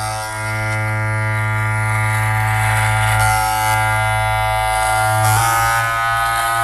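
Slowed-down, heavily reverberant instrumental music with no vocals: a sustained buzzing synth chord held over a steady low bass note. The bass thins out about a second before the end.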